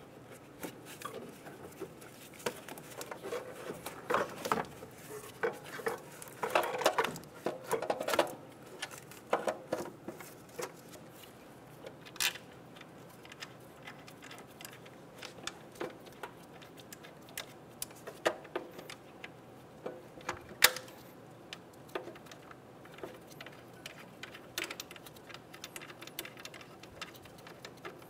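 A car alternator being handled and worked into its mounting in the engine bay: irregular metal clicks, knocks and scrapes, busiest a few seconds in, with a few sharper clicks later.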